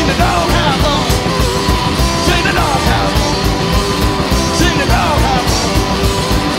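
Live blues boogie from a small band: guitar, upright double bass and drum kit playing a driving, steady beat, with the guitar sliding down between notes.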